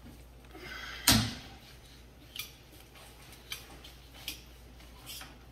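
Pork cuts and metal handled on a stainless steel meat-cutting table: one sharp knock about a second in, then a few light clicks.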